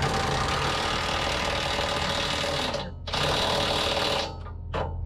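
A power tool running in bursts, rattling loudly: a long run of about three seconds, a shorter one, then a brief blip near the end.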